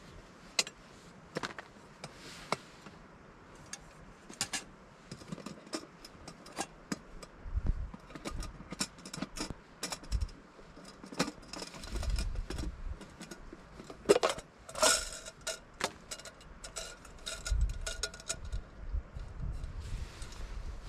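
Metal camping cookware clinking and rattling as a nested pot set is handled and unpacked, many light knocks and scrapes with a few short metallic rings from the pot and lid, the loudest a little past the middle.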